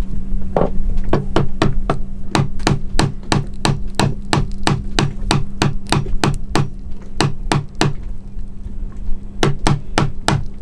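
Light hammer taps on a screwdriver driven under an aluminium hatch frame to break the old sealant, about three taps a second, pausing briefly near the end before a few more. A steady low hum runs underneath.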